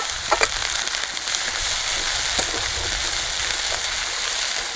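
Freshly ground ginger and red chilli paste sizzling and spattering as it fries in hot oil in a wok, a steady loud hiss, with a few sharp knocks of a metal spatula against the pan.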